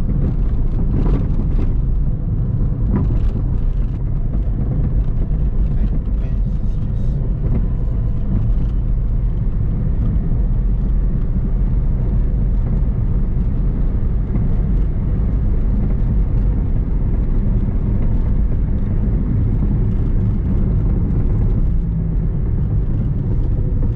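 Steady road and engine noise heard from inside a moving car: a constant low rumble with no change in pace.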